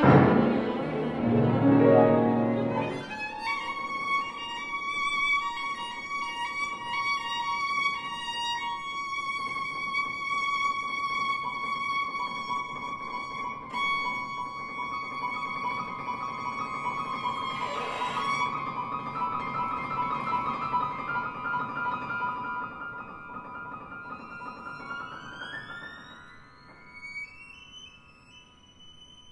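Violin and piano playing a contemporary classical piece. Loud piano chords open it, then the violin holds one long high note over soft piano, slides slowly upward near the end and fades away.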